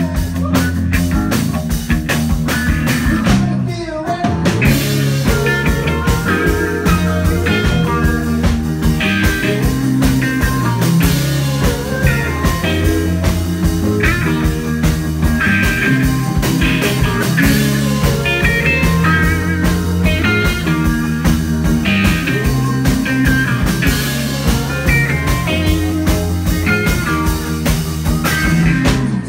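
Live rock band playing: a Telecaster-style electric guitar over bass guitar and a steady drum beat.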